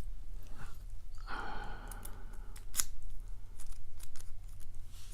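A key being worked in a stiff steel padlock: scattered small metallic clicks, with a longer scraping rub of about a second, as the key is jiggled and turned. The lock is rough and hard to open with its own key.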